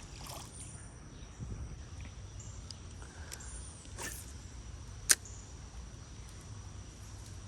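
Steady high-pitched insect drone over a quiet outdoor background, broken by a few sharp clicks, the loudest about five seconds in.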